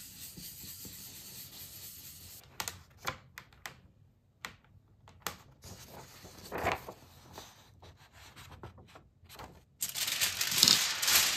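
Paper being burnished by hand against an inked aluminium-foil kitchen lithograph, a soft steady rubbing, then scattered scrapes and rustles as the print sheet is peeled off. Near the end the thin aluminium foil plate crinkles loudly as it is lifted.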